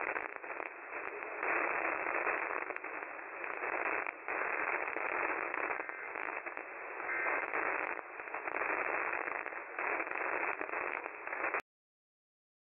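Radio static: a steady hiss with crackles that cuts off suddenly about a second before the end.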